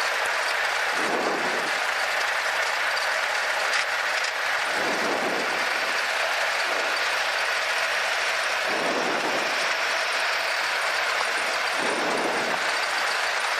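Steady cabin drone of a Cessna 182Q's six-cylinder Continental O-470 engine and propeller running at low taxi power, with slight swells in the lower tones every few seconds.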